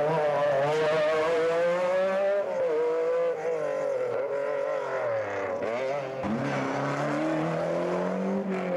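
Rally car engines at full throttle: an MG Metro 6R4's V6 revving hard as it passes close, then other rally cars accelerating down the stage, the engine note falling and climbing again several times with gear changes.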